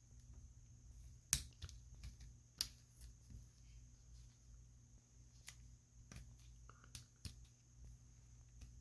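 Scattered sharp clicks and taps from handling a molded plastic action figure and its packaging. The two loudest come about a second and a half and two and a half seconds in, with a few lighter ones later, over a faint steady hum.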